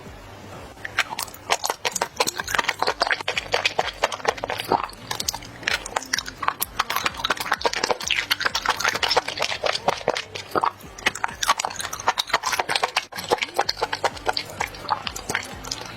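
Close-miked chewing and lip-smacking of someone eating a spicy squid dish: a dense, irregular stream of wet mouth clicks.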